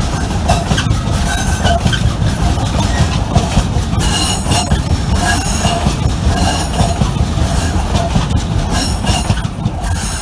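Long freight train of enclosed wagons rolling past, the wheels clattering over rail joints and pointwork, with short bursts of wheel squeal repeating throughout. The noise begins to fall away near the end as the last wagon clears.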